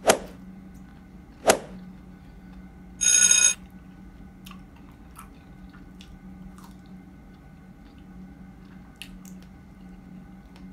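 Subscribe-button animation sound effect: two sharp clicks about a second and a half apart, then a short bell ring about three seconds in. Faint chewing of strawberries follows, over a low steady hum.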